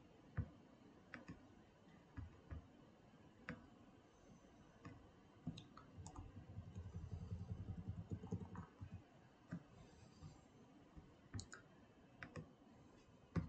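Faint, scattered clicks of a computer mouse and keyboard, with a denser run of soft, rapid clicks in the middle.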